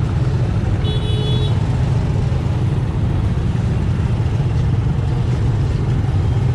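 Motorbike traffic crawling in a jam: a steady, loud, low engine rumble from the scooters all around. A short high beep sounds about a second in.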